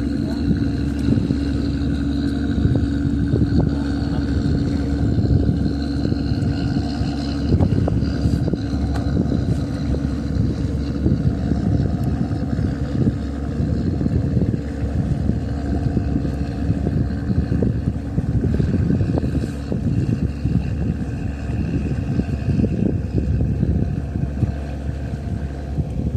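Small motorboat engine running at a steady speed, its tone held constant over a rough rushing noise.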